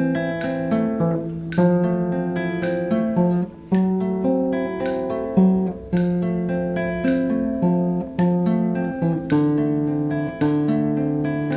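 Acoustic guitar music, with chords strummed about once a second and ringing notes between them, stopping abruptly at the end.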